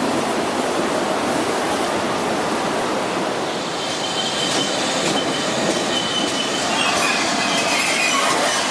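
Steam-hauled train running past with a steady rushing noise. From about halfway through, thin high squeals from the wheels rise over it, with some light clicks.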